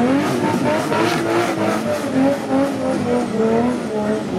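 Nissan Patrol Y61 engine revving hard under load while climbing, its pitch rising and falling several times. The 40-inch mud tyres churn and scrabble for grip, loudest in the first second or so.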